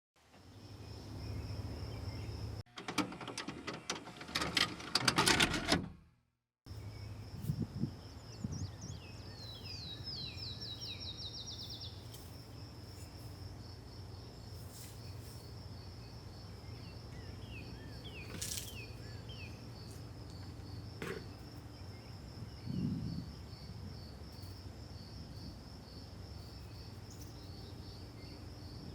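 Crickets chirping steadily at a high pitch over a low hum. A quick run of short falling chirps comes about ten seconds in. Earlier there is a louder few seconds of dense clicking and clattering, cut off by a brief silence.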